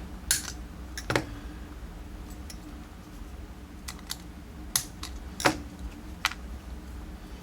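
Irregular light clicks and taps as an ABUS padlock and small lock tools are handled on a mat while the lock is being readied for disassembly.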